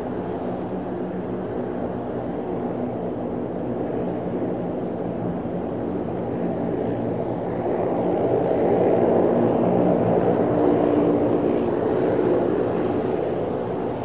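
De Havilland Canada Dash 7 turboprop engines running, a steady sound with several engine tones. It grows louder from about eight seconds in, then eases back near the end.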